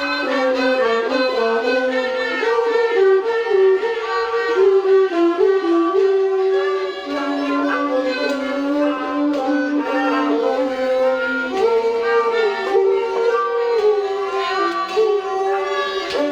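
Thai classical instrumental music, a homrong overture, with a bowed-string melody moving in short steady notes over light percussion.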